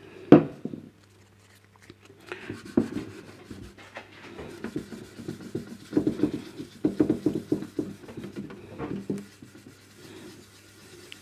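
Hand wet-sanding of a clear plastic radio case panel with a fine-grade pad from a headlight lens restoration kit: irregular back-and-forth rubbing strokes that start about two seconds in and are densest in the middle. The pad is too fine to cut the deep scratches. A single short knock comes about a third of a second in.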